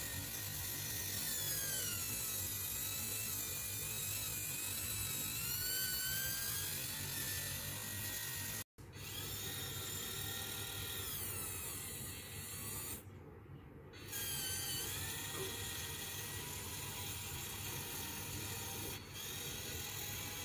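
Small electric gear motors whining through the 3D-printed plastic gearboxes of an RC model tank as its turret traverses and its gun moves. The pitch glides up and down as the motor speed changes, with a brief break about nine seconds in.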